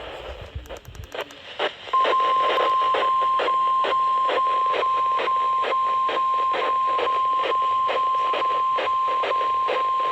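NOAA Weather Radio's 1050 Hz warning alarm tone, one long steady beep starting about two seconds in, received over radio static that crackles about twice a second. The tone signals that a severe thunderstorm warning is about to be broadcast.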